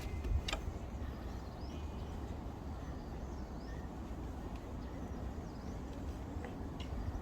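Outdoor background noise: a steady low rumble, with a click about half a second in and a few faint short bird chirps near the end.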